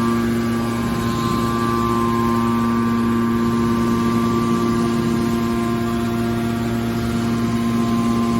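Hydraulic scrap metal baler running: a steady machine hum from its motor and hydraulic pump, with a few held tones.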